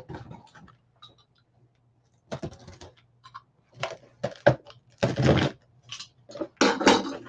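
A box-cutter blade slits packing tape on a cardboard box, and the box is handled. After a quiet first two seconds come a series of short scraping, rustling bursts.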